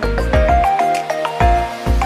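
Music: a melody of held pitched notes stepping up and down over a bass line, with a few sharp drum hits.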